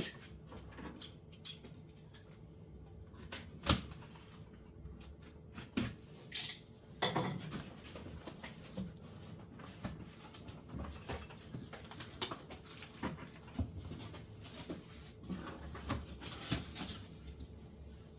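A cardboard shipping box being cut open and pulled apart by hand: scattered knocks, scrapes and rustles of cardboard and packing. The loudest knock comes about four seconds in, and a longer scraping rustle about seven seconds in.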